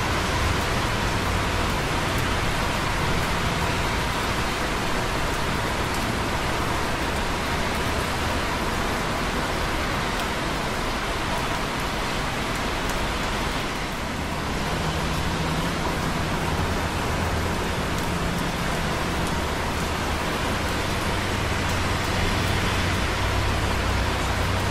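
Light rain dripping on concrete close by, over a steady wash of busy traffic on wet roads below. The traffic makes a constant low rumble under the even hiss of the rain.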